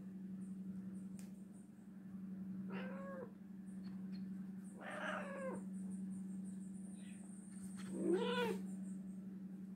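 Domestic cat yowling three times, each a short call that rises and falls in pitch, the last the loudest, angry at having wound powder puffed onto its coat. A steady low drone runs underneath.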